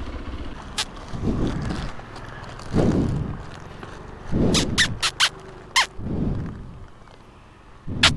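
Plastic biscuit wrapper and carrier bag crinkling and crackling as a packet is pulled out and torn open, with a cluster of sharp rustles about four to six seconds in and another near the end. Dull thumps of handling sound between them, and a low motorcycle engine hum fades in the first second.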